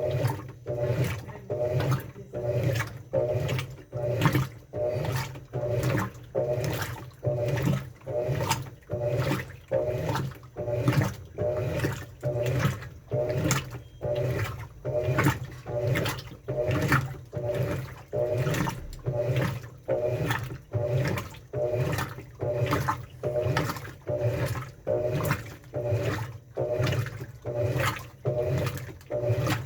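Agitator washing machine churning a load in water: rhythmic swishing strokes, about one a second, over a steady motor hum.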